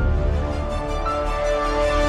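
Channel outro theme music: sustained chords over a heavy bass, swelling near the end.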